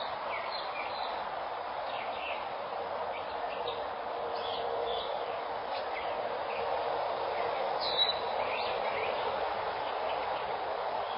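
Outdoor ambience through a security camera's microphone: a steady background hiss with scattered short bird chirps, one louder chirp about eight seconds in.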